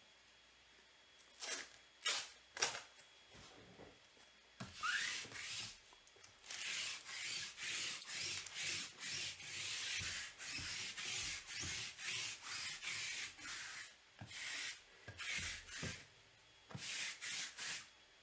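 Sticky lint roller being rolled back and forth over a cloth tabletop, making a run of short rubbing strokes at about two a second. A few sharp knocks come first.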